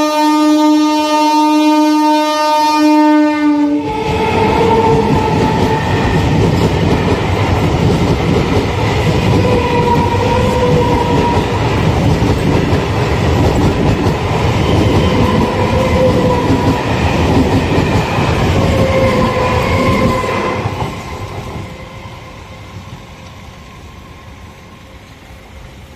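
Electric multiple unit local train sounding a long, steady, single-tone horn that stops about four seconds in. Then the train passes close by, loud, with the noise of its wheels on the rails. After about twenty-one seconds it quickly drops away as the last coaches go by.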